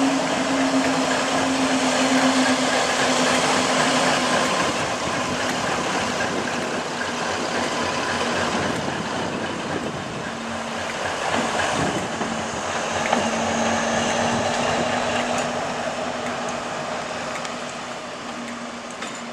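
Class 60 diesel locomotive, with its eight-cylinder Mirrlees engine, running light engine slowly past with a steady engine drone. The sound grows fainter over the last few seconds as it moves away.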